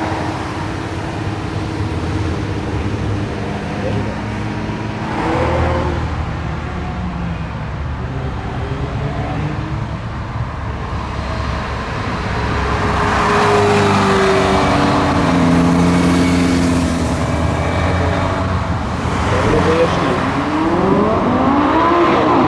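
Italian sports car engines running and revving as cars drive past, with a rev that rises and falls near the end. People talk in the background.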